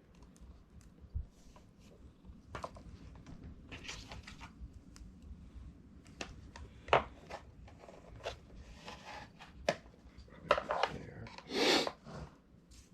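Parts of a pet water fountain being handled and fitted together: scattered clicks, knocks and rubbing scrapes, with a brief louder rustle near the end.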